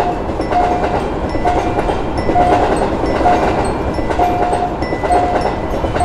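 A train passing over a level crossing, a steady rumble of wheels on rails. Over it the crossing warning signal sounds a short tone about once a second.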